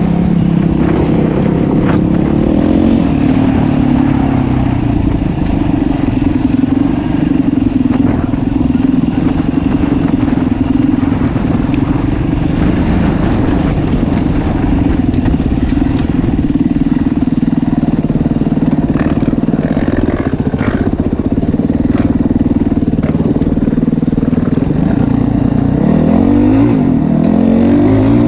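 Yamaha WR450F four-stroke single-cylinder dirt bike engine running steadily under load, its pitch dropping and then climbing again near the end as the throttle is rolled off and back on. Occasional brief clicks and knocks sound over the engine.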